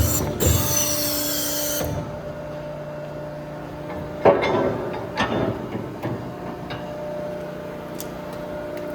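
KMF hydraulic horizontal baler running, its hydraulic power unit humming steadily. There is a loud hydraulic hiss with a falling whistle for about a second and a half near the start, and sharp metal clunks about four and five seconds in.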